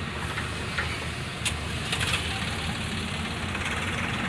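Diesel engine of a backhoe or tractor running at a steady idle, with a few short clicks over it.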